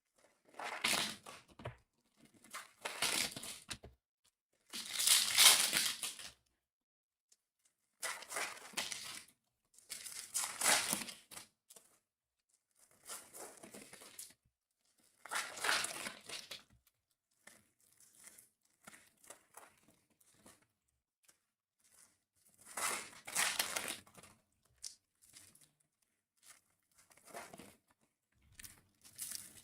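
Plastic wrapping of a trading-card box and its packs being torn open and crumpled: about ten short crinkling, tearing rustles with quiet gaps between.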